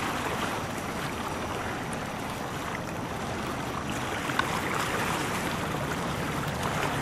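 Steady outdoor rushing noise, with a faint click about four and a half seconds in.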